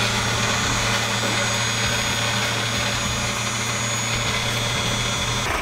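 Pickup truck engine idling steadily, a constant low hum.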